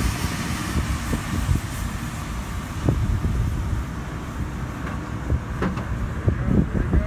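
Diesel engines of a Case backhoe and a tractor running while the machines work a truck stuck in mud, mixed with wind rumbling on the microphone.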